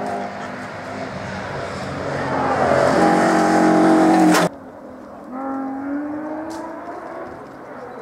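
A Ford Escort Mk2 rally car accelerates and passes close, its engine rising to its loudest just before the sound cuts off abruptly about four and a half seconds in. After the cut, a second rally car, a BMW 3 Series E30, is heard approaching more faintly, its engine note climbing in pitch as it pulls through the gears.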